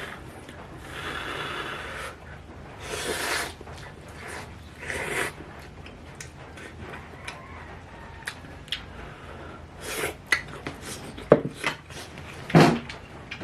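A person eating ramen noodles: a few short slurps in the first five seconds, then chewing with many small clicks and two louder knocks near the end.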